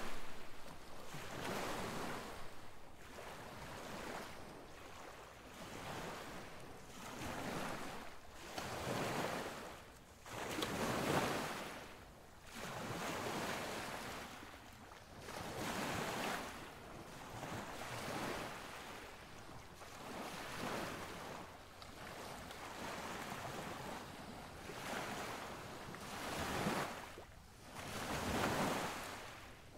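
Rushing noise of surf and wind, swelling and fading about every two seconds.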